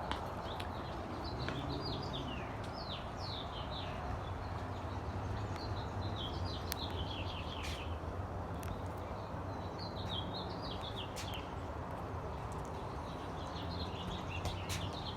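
A songbird singing phrases of quick chirps, each phrase running downward in pitch, four times, over a steady low background rumble.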